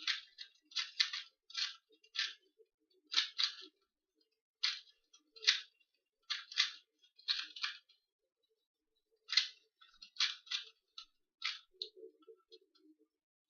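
2x2 Rubik's cube being scrambled by hand: its plastic layers click and clack as they are turned, in irregular runs of quick turns with a pause of about a second and a half past the middle.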